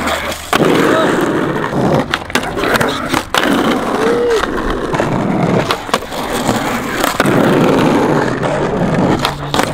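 Skateboard rolling, with repeated sharp clacks as the board's tail pops and the wheels and deck hit the ground during warm-up tricks.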